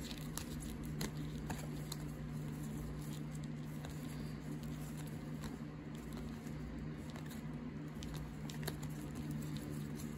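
Basketball cards, many in plastic sleeves, being flipped through by hand: light rustling and scattered small clicks of card and sleeve edges, over a steady low hum.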